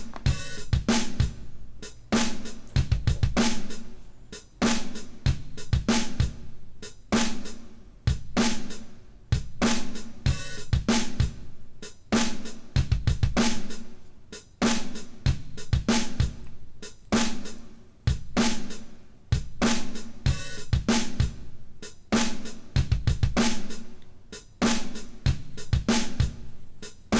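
Background music with a steady drum-kit beat: snare, hi-hat, cymbals and bass drum.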